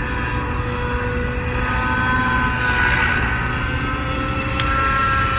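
Model helicopter engine and rotor running in flight, a steady whine and hum that wavers slightly in pitch as the helicopter flies a steeply banked manoeuvre.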